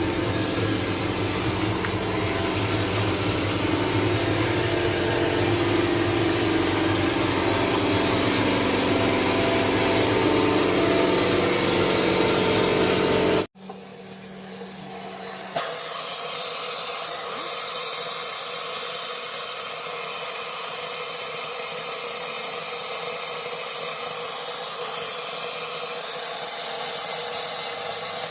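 Vapor blasting machine running: a steady spraying hiss over the hum of its pump. About halfway through the sound cuts off abruptly and gives way to a quieter, steady hiss.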